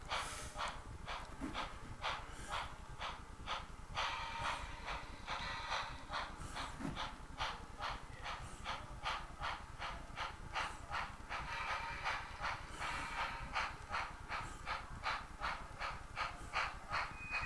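Tsunami sound decoder in an HO-scale Spectrum Great Northern 4-4-0 American steam locomotive model playing steam exhaust chuffs with hiss through its small onboard speaker as the model runs. The chuffs come about two a second at first and quicken to about four a second as the locomotive speeds up.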